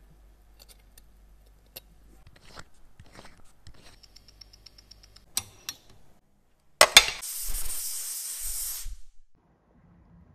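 Faint scattered clicks, then a sharp click about seven seconds in and about two seconds of loud air hissing from a Witschi Proofmaster water-resistance tester, which checks a watch case's seal with air pressure.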